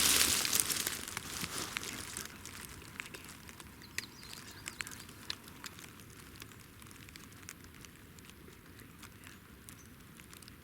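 Rustling and crackling close to the microphone, loudest in the first second or so, then thinning to scattered faint clicks and ticks.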